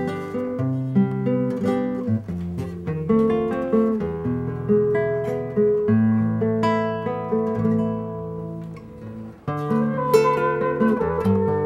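Acoustic guitar playing an instrumental passage of plucked and strummed chords with bass notes. About ten seconds in, a held, wavering higher note joins in.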